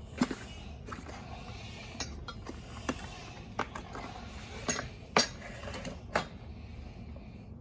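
Steel deep offset spanner wrenches clinking and knocking against each other as they are handled: about seven separate metallic clinks at irregular intervals, the loudest about five seconds in.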